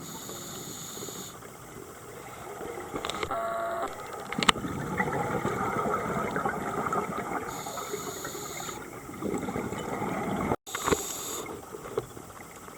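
Scuba regulator breathing heard underwater: short hisses of inhalation near the start and again about 8 and 11 seconds in, between longer stretches of bubbling exhaust with a few sharp knocks.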